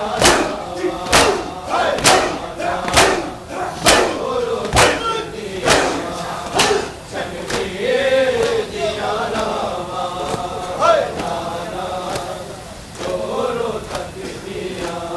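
Mourners' matam: hands slapping chests in unison about once a second over a crowd of men chanting. The slaps stop a little past halfway, and the chanting voices go on.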